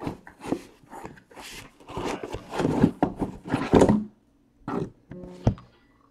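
Shrink-wrapped cardboard hobby boxes of trading cards being picked up and restacked on a table: the cellophane crinkles, and the boxes knock and slide against each other and the tabletop. The handling comes in quick strokes for about four seconds, then a few scattered knocks.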